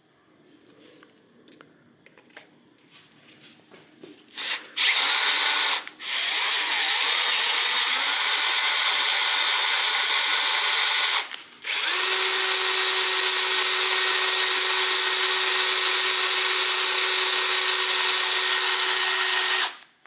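Electric drill boring into a damaged cylinder head bolt to drill it out. A few faint clicks come first. The drill starts about four and a half seconds in, stops briefly twice, and then runs at a steady speed with a constant whine until just before the end.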